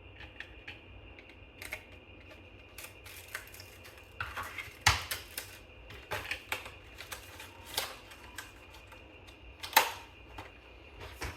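Irregular sharp clicks and taps of hands working a laptop, with two louder knocks about five and ten seconds in. A faint steady high hum runs underneath.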